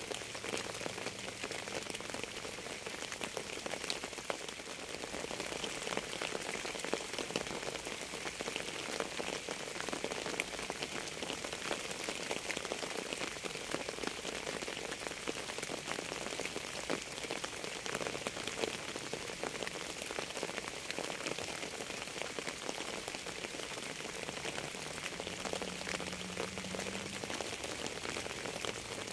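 Steady rain falling, with many distinct drop impacts over an even hiss.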